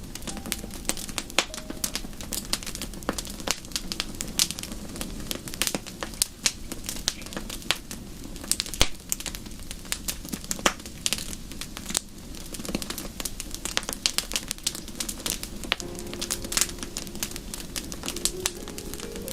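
Wood fire in a fireplace crackling, with many irregular small snaps and pops over a low steady rumble of burning.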